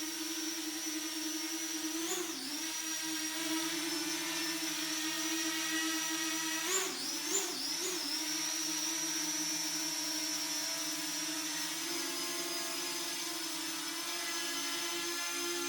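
Parrot Anafi quadcopter hovering, its propellers giving a steady whine. The pitch briefly wobbles about two seconds in and three more times in quick succession near the middle, as the motors change speed.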